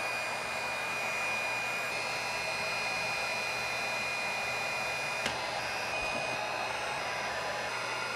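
Electric heat gun running, a steady rush of blown air with a high motor whine, heating the glue that bonds the protection glass to the CRT. A single sharp click about five seconds in.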